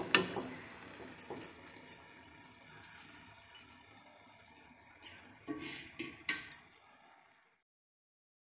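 Jackfruit fritters sizzling as they deep-fry in hot oil in a metal wok, with light clinks of a wire mesh strainer against the pan, the sharpest right at the start and again about six seconds in. The sound cuts off about seven and a half seconds in.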